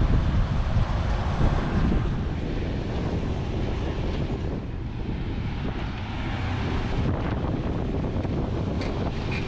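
Wind buffeting the microphone outdoors, a steady low rumbling noise with no clear tones.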